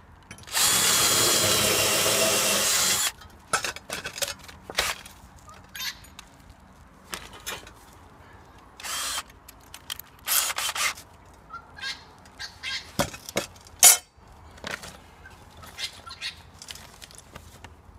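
Cordless drill running steadily for about two and a half seconds, drilling a hole through a solar-panel tile-foot bracket into the roof truss's timber top chord. It is followed by scattered clicks and knocks of hardware being handled, with a couple of short bursts of noise and one sharp knock just before the middle.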